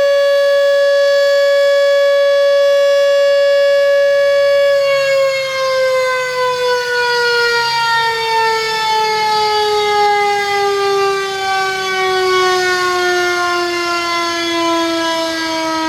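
Civil-defence-style siren sounding a loud steady tone. About five seconds in, its pitch begins to fall slowly and evenly. It is sounded to signal the time to break the fast in Ramadan.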